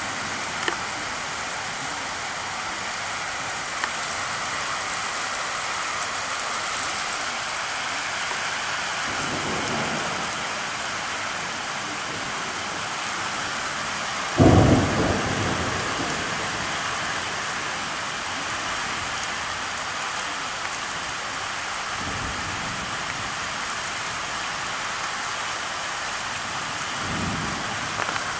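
Heavy rain pouring steadily onto a street. Thunder: one loud clap about halfway through that rumbles away over a second or two, and a few softer low rumbles before and after it.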